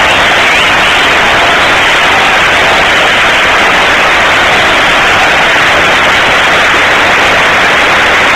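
Large football stadium crowd singing and cheering, so loud on the recording that it blurs into a steady, distorted hiss.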